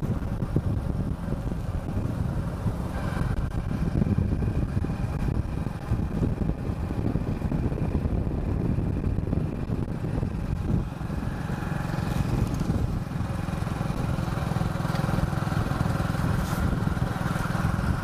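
A vehicle driving along, its engine running steadily with a low rumble.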